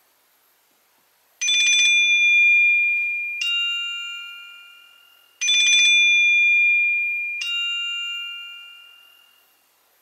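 Nokia C3 mobile phone ringtone: a bell-like two-note chime, each note struck sharply and left to ring down slowly, the pair played twice.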